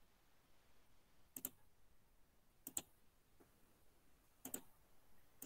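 Faint computer mouse clicks: three pairs of quick clicks, a second or more apart.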